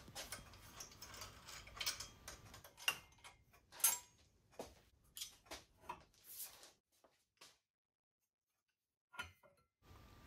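Faint, irregular metallic clicks, clinks and scrapes as cam cap bolts are undone with a hex driver and the metal camshaft mandrels are slid out of the welded aluminium Kawasaki Z1 Super Six cylinder head. The loudest clinks come about three and four seconds in.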